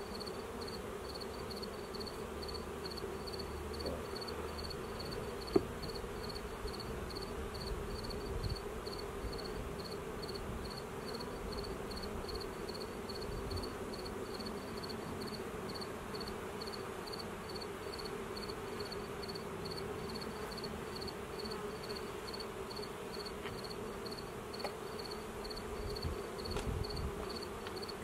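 Honeybee colony humming steadily around an opened hive during an inspection, with a faint high chirp repeating about two to three times a second and a single sharp click about five and a half seconds in.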